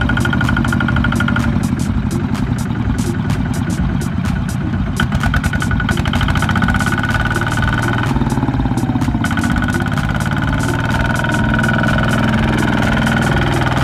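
A two-wheel walking tractor's single-cylinder diesel engine runs in a rapid, steady chug under load as its drive wheel churns, stuck in paddy mud while towing a loaded trailer. A high whine rides along with it and drops out briefly twice.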